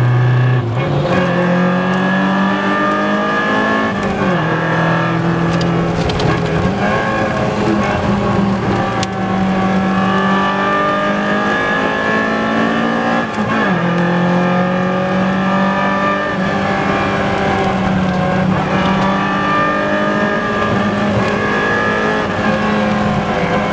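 BMW M3 E30's four-cylinder engine running flat out at high revs. The pitch holds high, with a brief dip and recovery a few times as the car shifts and lifts for corners.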